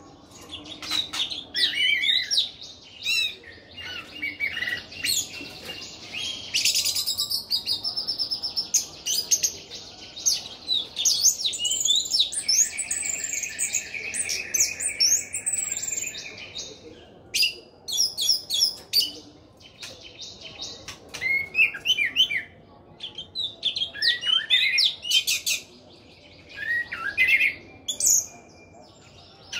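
Orange-headed thrush singing a long, varied song of whistled notes, chirps and fast trills in phrases with short pauses between, including one steady trill held for several seconds near the middle.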